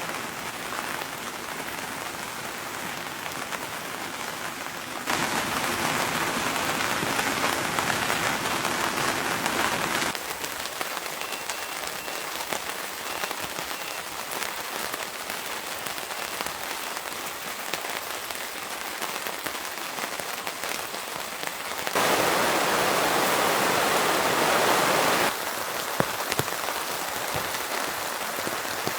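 Steady rain falling, with two louder stretches that begin and end abruptly.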